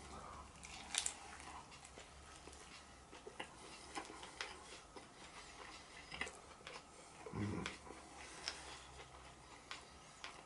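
Faint chewing and mouth clicks from someone eating a breaded chicken burger, with a soft low thump about seven and a half seconds in.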